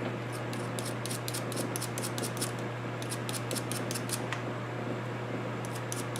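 Rapid scratching strokes of a small hand tool scrubbing a metal surface clean and shiny to take solder, in three runs with short pauses between, over a steady low hum.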